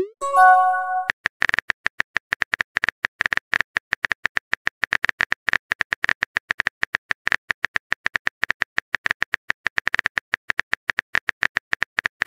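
Smartphone on-screen keyboard typing sounds: a fast, unbroken run of short clicks, one per letter. A short chime sounds just after the start, marking a chat message arriving.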